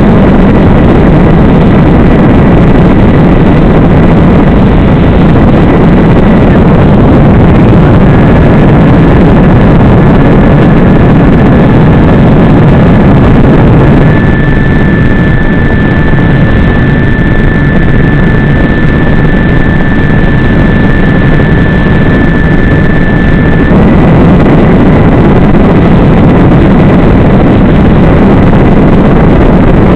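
Loud, steady rush of wind and electric motor and propeller noise from a small FPV aircraft, picked up by its onboard microphone. A thin high whine runs through it, dropping slightly in pitch about a quarter of the way in, growing stronger through the middle third, then stepping back up.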